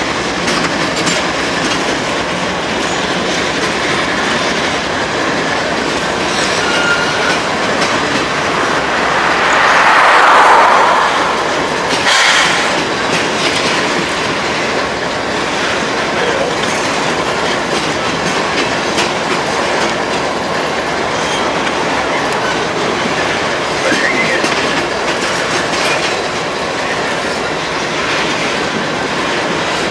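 CSX mixed freight train's tank and covered hopper cars rolling past, steel wheels clattering steadily on the rails with a few short squeals. The noise swells louder about ten seconds in, and there is a single sharp bang a couple of seconds later.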